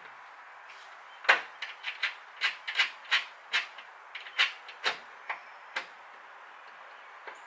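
About a dozen sharp, irregular clicks and knocks over four or five seconds, as small metal hardware and tools are handled while washers and nuts are fitted onto carriage bolts.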